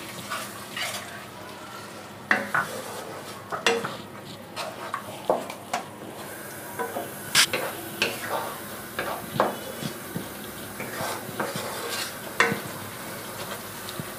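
Wooden spatula stirring and scraping a thick masala paste around a non-stick kadai, irregular scrapes and taps over a steady low sizzle. The paste is being fried down with a little water until the oil separates.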